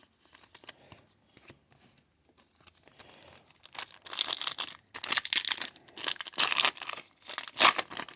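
Crinkling and tearing of plastic trading-card packaging, in several bursts from about four seconds in, after a few seconds of faint handling clicks.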